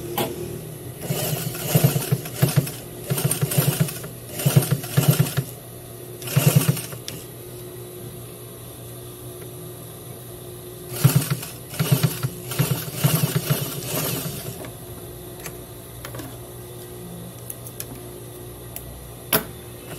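Domestic sewing machine with a size 11 needle stitching through several layers of thick neoprene, running in two spells of short bursts with its motor humming between them; the stitches form without skipping. A single knock near the end.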